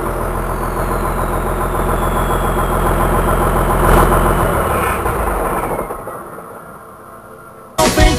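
Volkswagen 14.210 truck's turbo diesel engine idling, its turbocharger whistling as it winds down, the whistle falling slowly in pitch over the first few seconds; the turbo is fitted with a comb ('pente') to make it whistle. The engine sound fades out about six seconds in, and music starts abruptly near the end.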